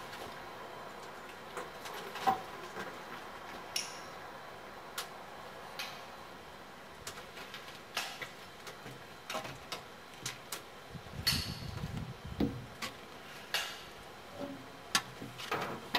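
Scattered light clicks and metal knocks around a steam tank locomotive being warmed up, with a short low rumble about eleven seconds in.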